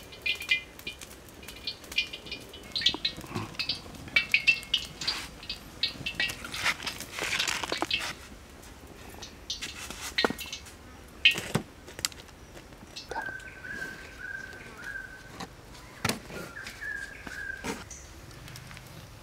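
Scattered clicks and light knocks from snakes being handled over woven baskets, with birds chirping in short notes during the first few seconds. A high whistled call comes in, in phrases, from about two-thirds of the way through.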